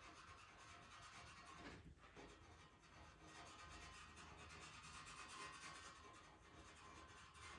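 Pastel pencil rubbing and scratching over Pastelmat paper in quick short shading strokes, faint.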